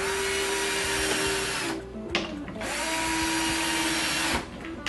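Cordless drill driving screws through metal L clips into a wooden cabinet back panel: two steady runs of the motor whine, each about a second and a half to two seconds long, with a short pause between them.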